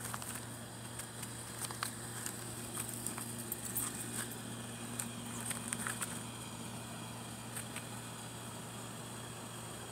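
Light crackling and rustling in dry leaves and wood mulch, with scattered sharp clicks mostly in the first six seconds, over a steady low hum.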